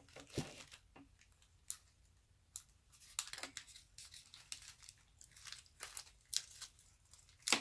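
Tags being popped and pulled off artificial rose stems, with the fabric flowers and plastic leaves rustling: a scatter of short clicks, snaps and crinkles at uneven intervals.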